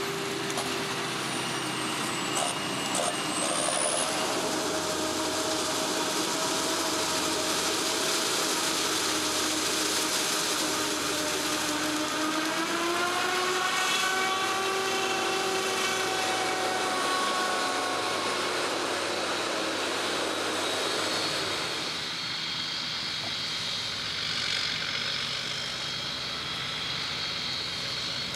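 Diesel engines of heavy farm machinery running in a maize field: a John Deere tractor hauling a loaded silage trailer and a Claas Jaguar forage harvester. The engine note rises in pitch about halfway through, and the sound changes character near the end.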